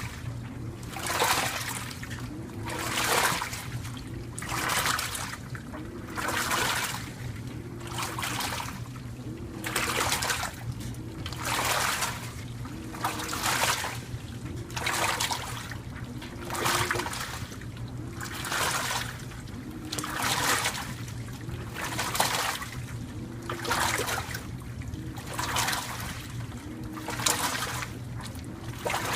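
2012 LG top-load washing machine agitating a load: its wash plate turns back and forth, throwing water in a splashing surge about every two seconds. The drive motor whines, rising and falling in pitch with each stroke, over a steady hum.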